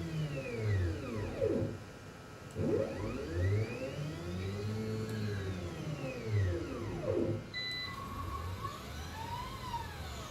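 Stepper motors on the Gecko drives of a Multicam CNC router whine as the gantry makes rapid moves, the pitch rising as each axis speeds up and falling as it slows, with three moves in all: a short one, a long one and a shorter one. A short electronic beep sounds about three quarters of the way through.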